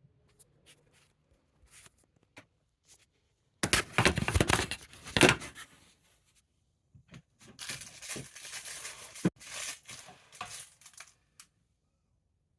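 Sandpaper scratching against salvaged pallet wood in two spells of hand sanding, the first loud and the second quieter and more broken, with a few light clicks in between.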